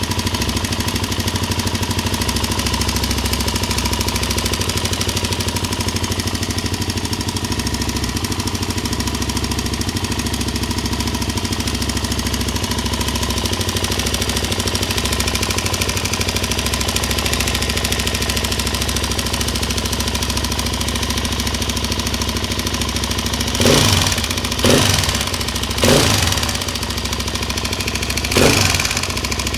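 Suzuki LTZ400 quad's single-cylinder engine idling steadily with a fast ticking from the cylinder head, then blipped about five times in quick bursts near the end.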